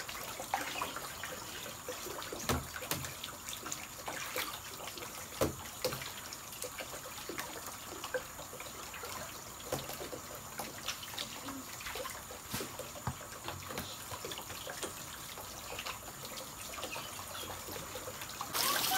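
Water spraying from a hose-fed sprayer at the top of a plastic toy slide and trickling down its surface: a steady hiss of water with scattered small taps and drips.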